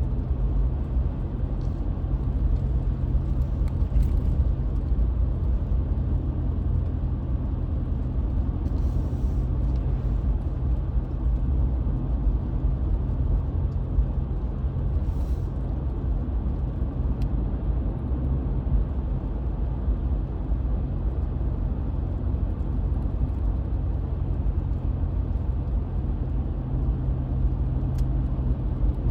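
Car driving along a road: a steady low rumble of engine and tyre noise with a constant low hum, as heard from inside the car.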